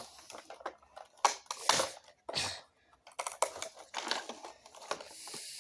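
Plastic housing of an iPod docking clock radio being struck and pried at with a tool while it is broken apart: a series of sharp, irregularly spaced clicks, knocks and cracks.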